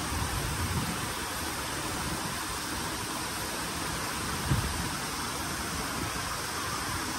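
Steady rushing noise of falling water from a mini golf course waterfall, with one soft thump about four and a half seconds in.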